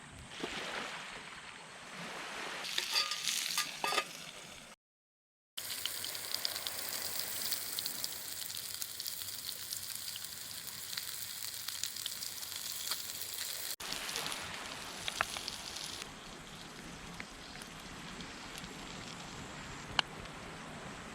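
Meat sizzling in a frying pan over a campfire: a dense crackling hiss with small pops. It breaks off in a short silent gap about five seconds in and grows fainter over the last few seconds.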